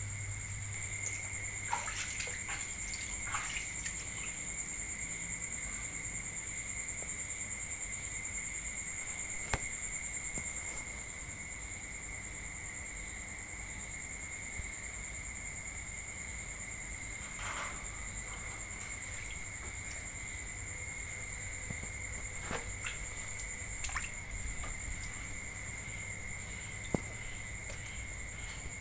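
Steady high-pitched trilling of night insects at two constant pitches, with a low hum underneath that stops about ten seconds in and a few faint scattered clicks.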